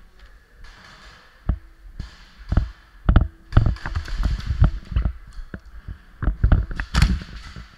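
Camera shaking and knocking against its mount as the player runs, with footfalls: a string of irregular dull thumps, loudest about three seconds in and near the end.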